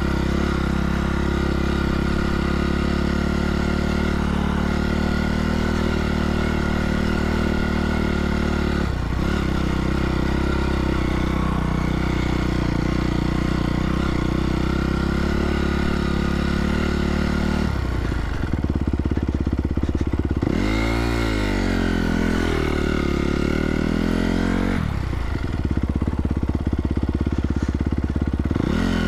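2017 Honda CRF250R's single-cylinder four-stroke engine running at steady revs, with a brief dip about nine seconds in. In the last third the revs fall and rise several times as the throttle is worked.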